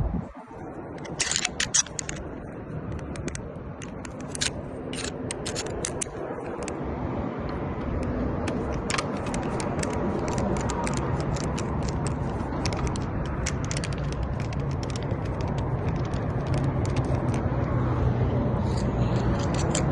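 Tools clicking and scraping on metal as a commercial door lock is unscrewed and taken off, with many sharp clicks in the first half. A steady low hum builds under it in the second half.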